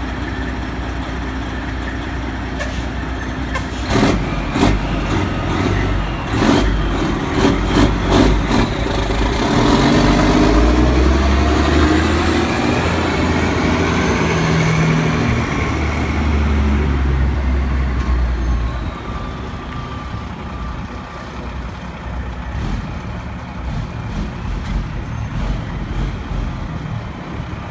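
Diesel semi-truck pulling a loaded trailer past at close range. Several sharp clanks sound about four to eight seconds in, then the engine pulls hard with its pitch stepping up and down, and the sound fades as the rig moves off.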